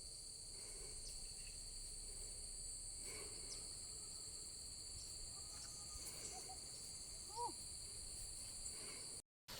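Insects trilling steadily in two high, continuous bands, faint, with a brief pitched call about seven seconds in; the sound cuts off suddenly just before the end.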